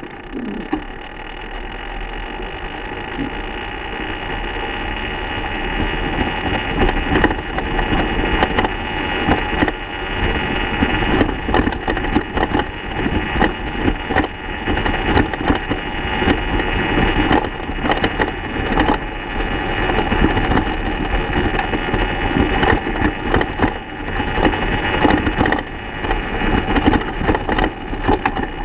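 A 2014 BMW F800GS Adventure coasting off road with the engine off: irregular clunks and knocks from the front end over steady wind and tyre noise, growing louder over the first several seconds as speed builds. The clunking is the sign of damaged steering head bearings, which the owner suspects were never properly tightened at the factory.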